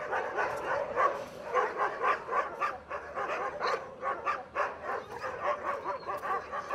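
Many kennelled dogs barking at once, their short calls overlapping without a break.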